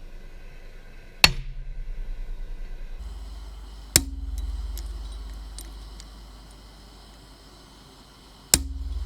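Three separate blows of a hand hammer on steel, a few seconds apart, each giving a sharp metallic strike with a brief ring, over a steady low hum.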